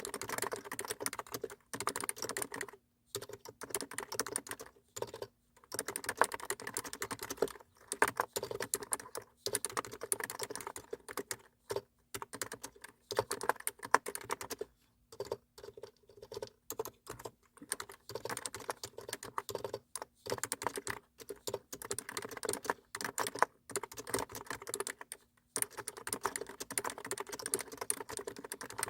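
Typing on a computer keyboard: rapid runs of key clicks broken by short pauses.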